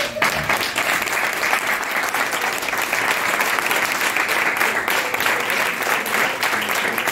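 Audience applauding: many hands clapping in a steady, continuous round.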